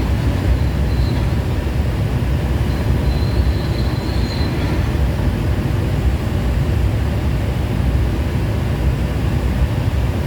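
Excavator's diesel engine running steadily under load while it demolishes a concrete stack base, with a faint high squeal about three to four seconds in.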